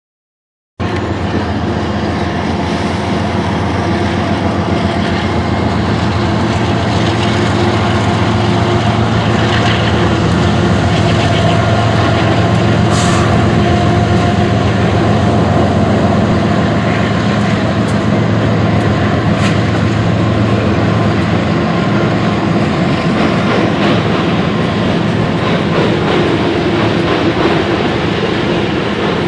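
Canadian Pacific freight train passing, starting abruptly about a second in: the lead diesel locomotives (GE AC4400CW, ES44AC and EMD GP38-2) run with a steady engine drone. The drone fades about two-thirds of the way through, leaving the rumble and clatter of freight cars rolling over the rails.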